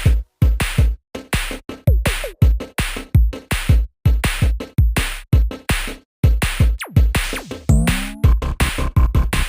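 Electronic background music with a fast, steady drum-machine beat and synth sweeps.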